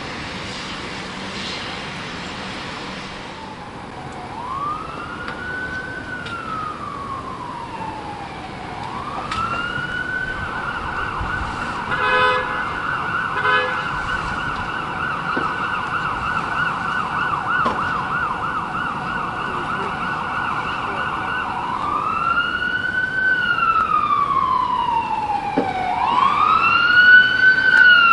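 Emergency vehicle siren wailing in slow rising and falling sweeps, then switching to a rapid warbling yelp for about ten seconds, then back to wailing. It grows louder toward the end. Two short blasts come about a second and a half apart during the yelp.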